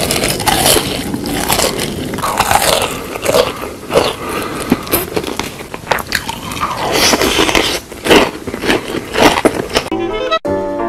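Loud eating sounds of repeated biting and crunching, with chewing. About a second before the end, music with a steady beat starts.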